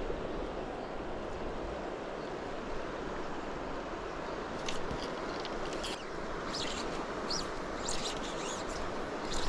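Steady rush of river water flowing. Short, high bird chirps come in about halfway through and repeat.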